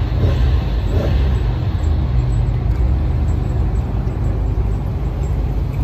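A car engine running steadily at idle, an even low rumble with no revving.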